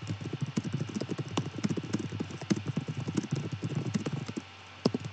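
Typing on a computer keyboard: a fast run of keystrokes, about ten a second, stopping briefly about four seconds in, then a few more keys.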